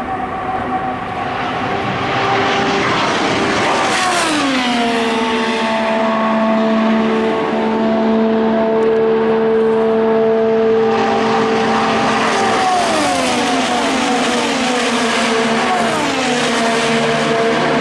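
IndyCar engines running at speed: a high, steady engine note with several pitch lines. The pitch glides down about four seconds in and again twice in the second half, then holds steady each time.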